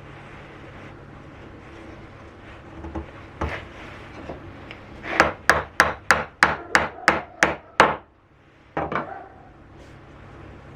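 Sharp blows struck on wood: a few single knocks, then a quick run of nine even strikes, about three a second, and a last pair near the end.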